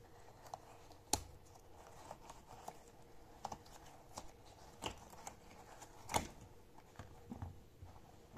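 Hands pulling a stretchy pink costume off a soft, foam-ball-filled squishy puppy toy: scattered soft clicks and rubbing, with two sharper snaps about a second in and about six seconds in.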